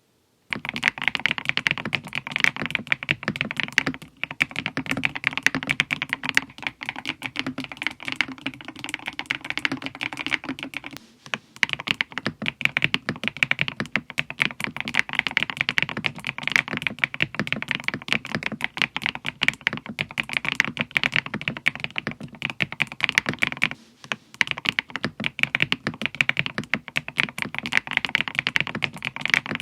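Mechanical keyboard fitted with KiiBoom Mewsic MOA-profile jelly keycaps, typed on fast and continuously in a dense run of key clicks. Three brief pauses break the run.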